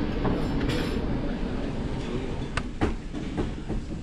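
Restaurant background noise, a steady low rumble, with a few sharp clicks and knocks about two and a half to three and a half seconds in as a laminated menu is handled and its pages turned.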